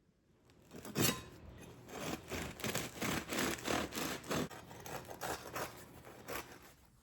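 A bread knife sawing through a crusty loaf: a run of rough scraping strokes, about two a second, starting about a second in and dying away near the end.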